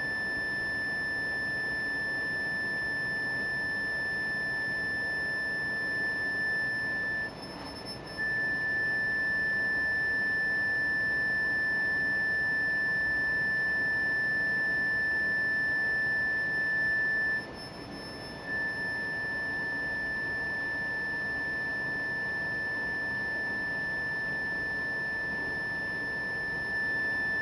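A contact speaker (surface transducer) sounding a steady, high 1,760 Hz sine tone through plywood boards of different thicknesses. The tone breaks off briefly about 7 and 17 seconds in, and the middle stretch is a little louder.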